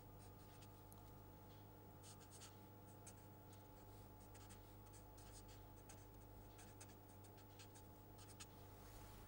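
Faint strokes of a felt-tip marker on paper as a formula is written out, a scattering of short scratches over a steady low hum.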